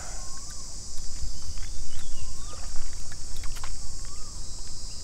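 Steady high-pitched buzz of insects over a low rumble, with light water splashes as a landing net is worked around a hooked fish. A short rising-and-falling call comes three times, about two seconds apart.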